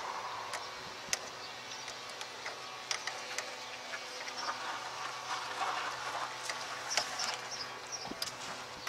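Scattered small metallic clicks and taps of a wrench and a battery cable clamp as the negative terminal is fitted and tightened on the battery post, over a faint steady hiss.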